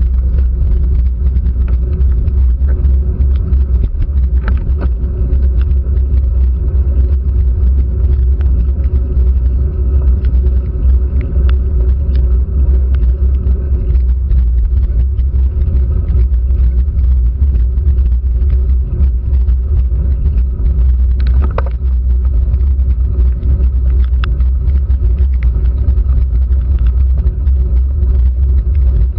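Steady low rumble of a bike-mounted GoPro Hero3 in its waterproof housing, picking up road vibration, tyre noise on wet tarmac and wind as a road bike climbs slowly. Scattered faint ticks run through it.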